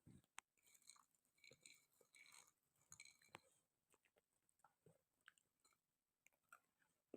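Faint chewing and crunching of roasted chickpeas, busiest over the first three and a half seconds, then a few scattered small clicks.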